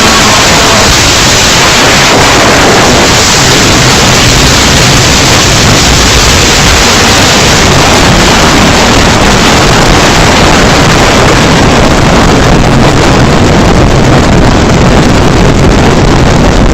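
Extremely loud, harsh, continuous noise like static, a dense rushing hiss that holds steady at full volume throughout, used as a scare sound effect.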